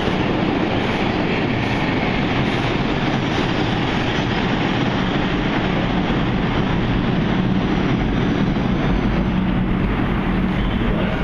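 New York City Subway express train running through the station on the express track without stopping: a steady noise of wheels on rail, with a low steady tone joining in near the end.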